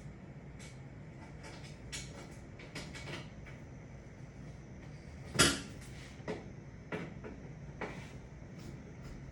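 Scattered light clicks and taps from handling the oven's panels and screws during reassembly, with one louder sharp clank about five and a half seconds in.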